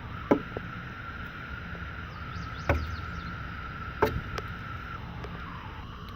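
Three sharp taps or knocks, roughly a second and a half apart, over a steady high-pitched tone that dips a little in pitch near the end, and a low background rumble.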